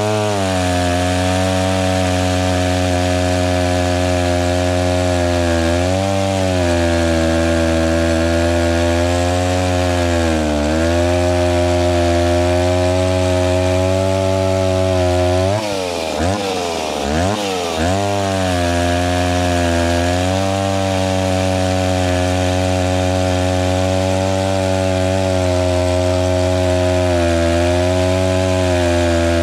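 Vintage Stihl S10 two-stroke chainsaw sawing through a log at full throttle. Its engine note dips as the chain bites, about six and ten seconds in. Around the middle it is let off and blipped several times, then settles back into the cut.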